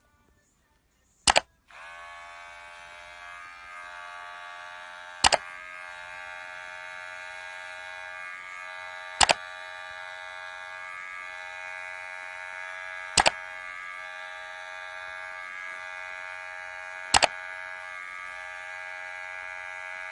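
Electric pet hair clippers switch on about two seconds in and run with a steady buzz while clipping a cat's fur. A loud, sharp click cuts across the buzz about every four seconds.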